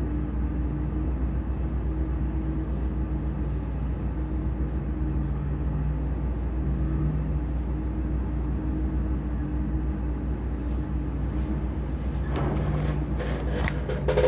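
Diesel-powered heavy construction machinery running: a steady low engine drone with a hum that shifts slightly in pitch now and then. In the last few seconds, a run of sharp knocks and clatter joins in.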